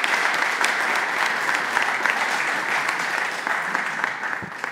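Audience applause, many people clapping together, dying away near the end.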